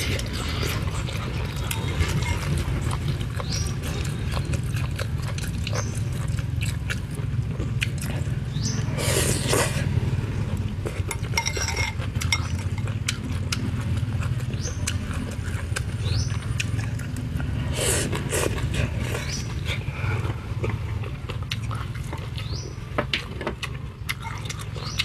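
Close-miked eating: chewing and lip-smacking on chicken on the bone, with many small wet clicks and two longer slurps about nine and eighteen seconds in, over a steady low rumble.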